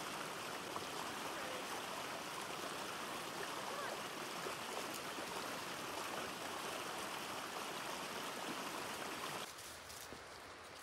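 Shallow mountain stream rushing and splashing over rocks and a small cascade: a steady wash of water noise. Near the end it cuts off suddenly, leaving a quieter background with a few faint footsteps on the trail.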